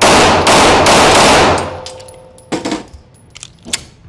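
Two rapid 9mm pistol shots from a Staccato P, about half a second apart, ringing with the echo of an indoor range for over a second. Then a few light metallic clicks as the pistol is handled.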